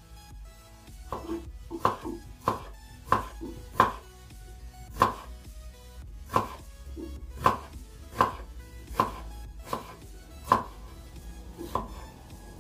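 Kitchen knife slicing an onion on a wooden cutting board: about fifteen sharp knocks of the blade hitting the board, unevenly spaced roughly a half second to a second apart, starting about a second in.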